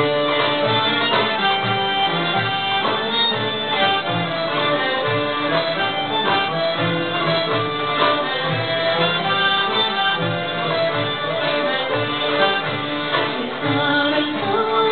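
Greek traditional ensemble playing a carol (kalanda) tune, the accordion prominent over violin, plucked ouds and lute and a hand drum keeping a steady beat.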